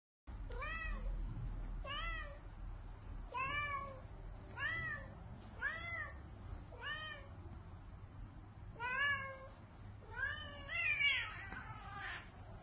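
A cat meowing over and over: about nine short meows, each rising then falling in pitch, a little over a second apart.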